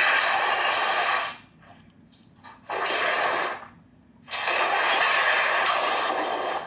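Three loud, harsh bursts of noise, the last about two and a half seconds long, with short quiet gaps between them, heard through a doorbell camera's microphone.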